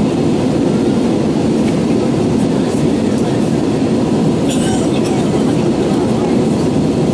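Steady cabin noise of an Airbus A320-214 in flight: an even, unbroken roar of airflow and CFM56 turbofan engines, with a brief faint click about four and a half seconds in.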